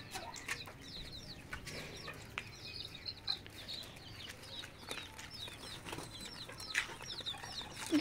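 Chicks peeping: a steady run of short, high chirps, with a few light knocks.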